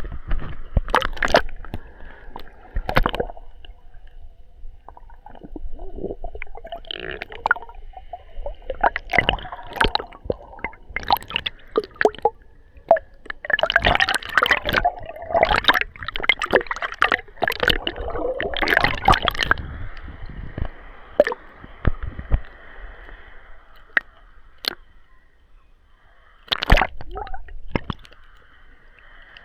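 Water sloshing and splashing around a waterproof action camera, heard muffled through its plastic housing, with irregular knocks and crackles. The splashing is heaviest through the middle, eases off after that, and there is one sharp knock near the end.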